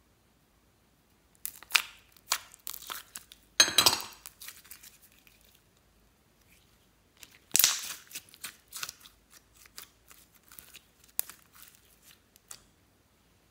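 Sticky slime being pulled and stretched by hand in a glass dish, crackling and popping as it tears and lets go, in two bursts: one from about 1.5 to 5 seconds in, the other from about 7.5 seconds until near the end.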